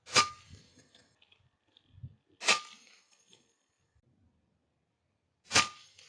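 Three shots from an FX Impact M3 .22 PCP air rifle, each a sharp crack with a brief ring, the second about two seconds after the first and the third about three seconds later.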